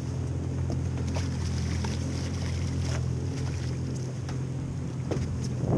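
Steady low hum of a boat engine idling, with wind on the microphone and a few light clicks and splashes as a sheepshead is brought alongside and netted.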